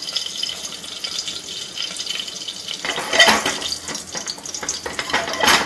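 Whole spices (cinnamon, cloves and cardamom) sizzling in hot oil in an aluminium pressure cooker: the tempering stage of a curry. Two louder, brief noisy bursts come about three seconds in and near the end.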